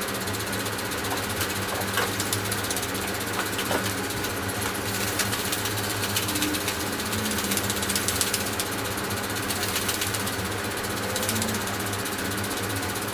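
Sony AIBO robot dog's leg servos whirring and clicking in a fast, even ticking as it walks, over a steady hum.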